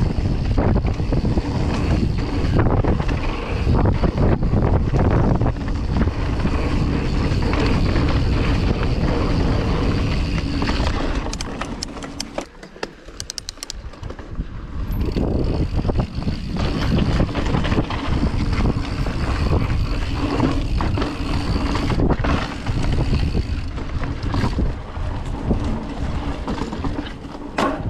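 Mountain bike riding fast down a dirt trail: wind rushing over the camera microphone, with tyre rumble and chattering rattle from the bike over the rough ground. About twelve seconds in the noise drops away for a few seconds and a quick run of ticks is heard before the rushing and rattling return.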